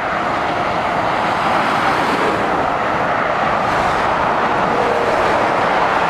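Steady motorway traffic noise: the tyres and engines of lorries and cars running along the road, with no single vehicle standing out.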